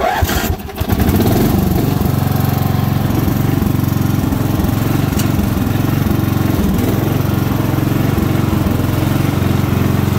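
Sears Craftsman riding mower's 12 hp single-cylinder Briggs & Stratton flathead engine turned over by the starter, catching about a second in and then running steadily.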